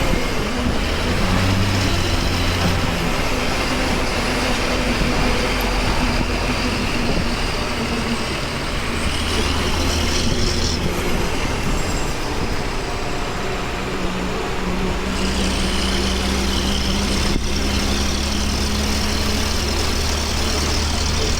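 Hino bus diesel engine running hard at road speed, a steady low engine hum over tyre and road noise; the engine note shifts about 9 seconds in and again about 15 seconds in.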